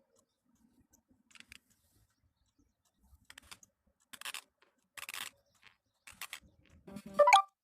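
A woman grinding her teeth in her sleep: six short grinds at irregular spacing. The last one, near the end, is the loudest and ends in a squeak that rises in pitch.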